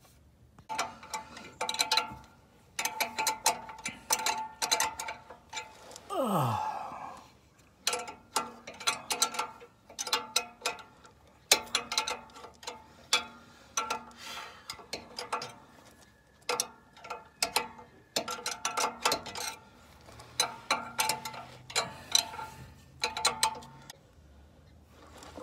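Ratchet wrench clicking in bursts of rapid ticks with a faint metallic ring, as bolts on a car's exhaust pipe flange are tightened. There is a brief falling tone about six seconds in.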